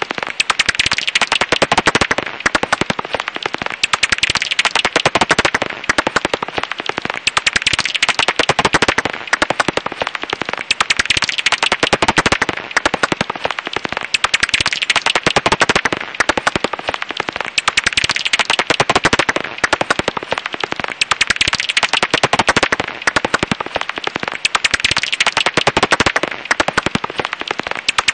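Japanese house bat (Pipistrellus abramus) calls heard as a dense, rapid crackle of clicks, swelling and fading about every three to four seconds.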